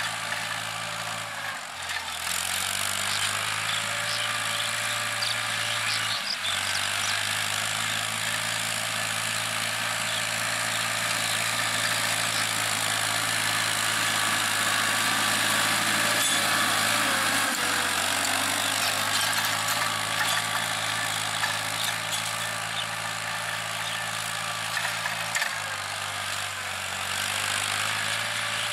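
CASE IH JX 55T tractor's 55 hp diesel engine running steadily under load while pulling a tine cultivator through field soil. The engine note shifts abruptly a few times.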